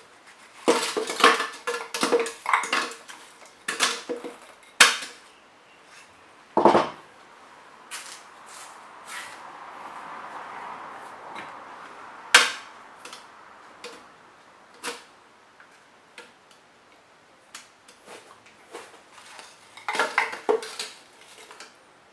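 Kitchen clatter of chunks of açaí pulp and banana going into a plastic blender jar, with a bowl and utensils knocking against the jar and the counter. It comes as bursts of sharp clicks and knocks in the first few seconds, single knocks later, and another cluster near the end. The blender is not running.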